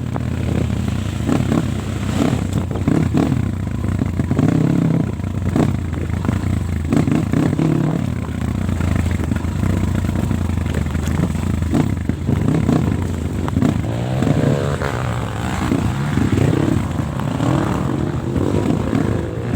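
Trail motorcycle engine revving up and down in repeated throttle bursts, with a rising whine about two-thirds of the way through.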